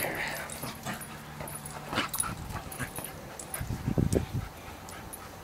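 Jack Russell terrier making small vocal sounds while playing with a football, loudest in a cluster of short, low sounds about four seconds in.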